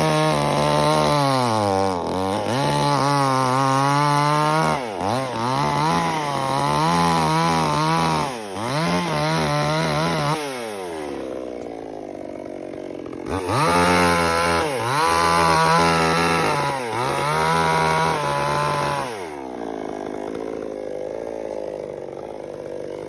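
Two-stroke chainsaw cutting coconut palm trunk, revving up and down repeatedly as it works through the wood, and twice dropping back to a lower, steadier idle for a few seconds before revving up again.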